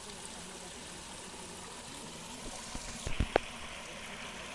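Steady hiss with a quick cluster of sharp knocks about three seconds in.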